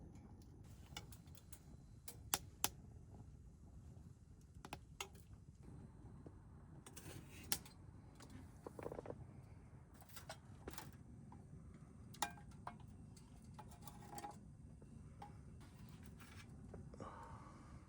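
Camp cooking at a wood stove: about a dozen sparse sharp clicks and light knocks over a low steady rumble.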